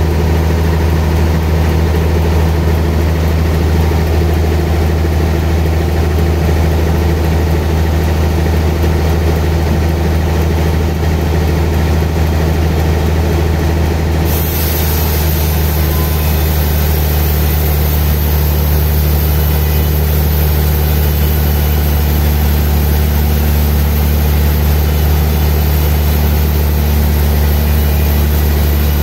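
Sawmill band saw cutting a large trembesi log, its motor and blade making a loud, steady low hum over a continuous rushing noise. About halfway through, a brighter hiss comes in suddenly and carries on.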